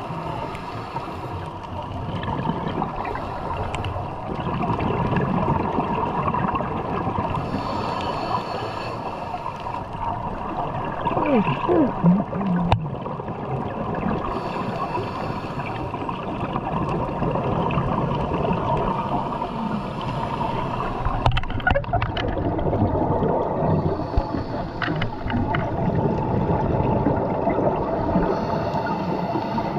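Muffled underwater noise through an underwater camera housing: a steady rush of water with gurgling bursts of scuba divers' exhaled regulator bubbles every few seconds.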